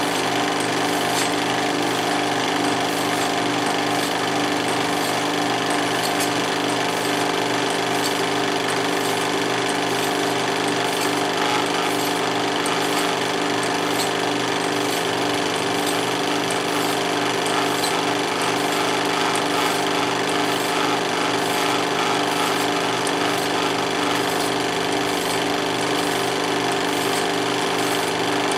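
16mm film projector running: a steady, fast mechanical clatter over a constant motor hum.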